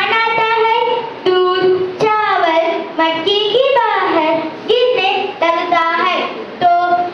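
A child singing in short phrases of about a second each, with brief breaks between them.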